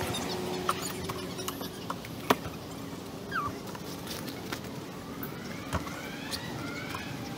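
Nylon gear pouches and a canvas duffel bag being handled: rustling with scattered clicks and knocks, the sharpest about two seconds in. Near the end a faint rising whine comes in.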